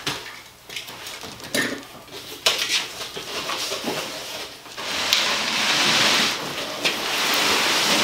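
Cardboard box and paper packing rustling, with a few knocks, as the box is unpacked. In the second half comes a long steady scrape as the heavy plastic carrying case slides out across the cardboard.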